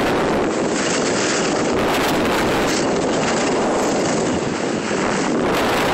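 Steady rush of wind on the microphone while skiing downhill, mixed with skis sliding and scraping on packed snow.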